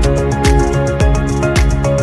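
Background music with a steady beat: kick drum about twice a second under sustained synthesizer notes and hi-hat ticks.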